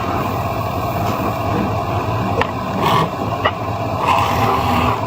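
Wood lathe running with a steady, dense mechanical noise, with a few short sharp ticks in the middle.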